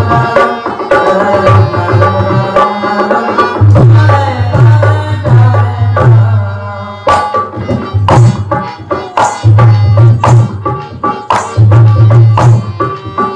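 Indian folk music led by a hand drum, with a held melodic line over the beat. The drumming thins out briefly about six seconds in, then comes back with sharp, rapid strokes.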